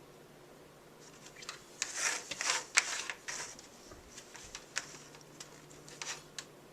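Hard plastic being handled and tapped: an irregular run of clicks, taps and rustling, busiest and loudest about two to three seconds in, then scattered clicks until shortly before the end.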